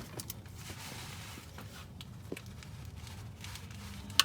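Faint metal handling clicks of a 15 mm wrench being fitted onto a car's oil pan drain plug, with one sharp metallic click near the end.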